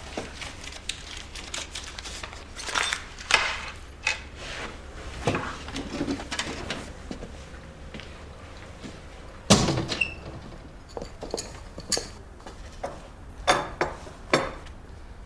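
A series of scattered knocks and clatters, like movement and handling of objects in a small room, with the loudest bang about nine and a half seconds in and two more sharp knocks near the end.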